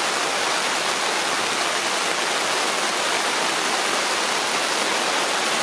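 Heavy rain, a total deluge, falling on and around a tent as an unbroken, steady hiss.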